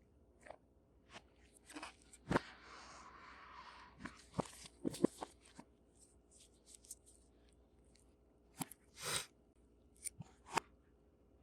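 Hands handling a smartphone and its cardboard box and packaging: scattered clicks and taps, with a rustle about two seconds in and a short scrape about nine seconds in.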